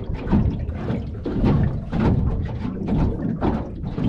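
Gusty wind buffeting the microphone, with water knocking at an aluminium drift boat's hull. It is an irregular, rough rumble with no motor running: the trolling motor has just been shut off.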